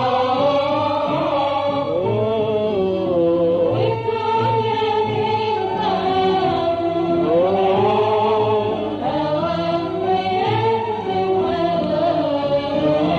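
Classic Arabic song music: an ensemble carrying one ornamented melody whose lines slide up and down in pitch without a break.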